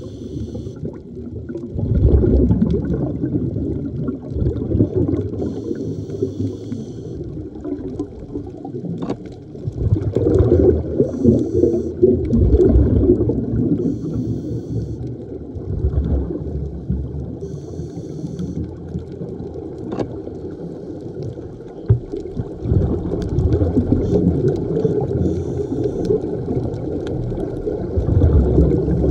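Scuba diver breathing through a regulator underwater, heard through the camera housing. There is a short hiss on each breath in, about every five or six seconds, and low bubbling and gurgling on each breath out.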